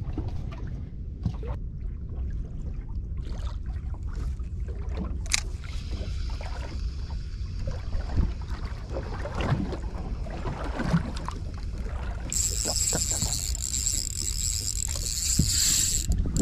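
Small boat on the sea: a steady low rumble of water and wind around the hull, with scattered light knocks of gear on board. About three-quarters of the way in, a high steady hiss starts and runs for about four seconds, then stops abruptly.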